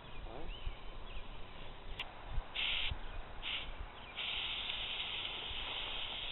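WD-40 aerosol can spraying: two short bursts of hiss, then a long spray of about two seconds. Birds chirp faintly in the first second.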